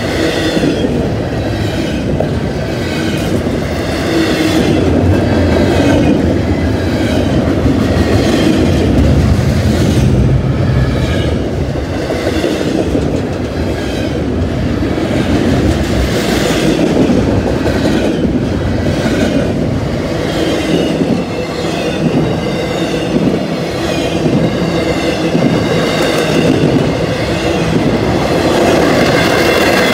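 Double-stack intermodal freight train's well cars rolling steadily past at close range: a loud rumble with the clickety-clack of wheels over rail joints. Squealing from the wheels comes and goes on top.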